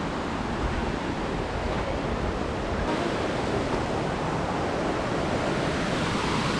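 Steady rushing of creek water, mixed with wind buffeting the microphone.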